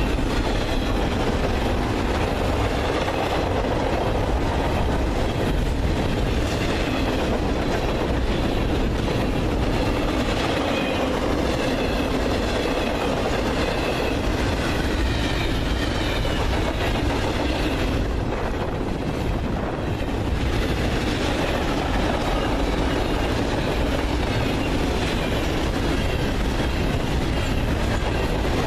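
A long intermodal freight train rolls steadily past at track speed, its wheels clattering over the rails.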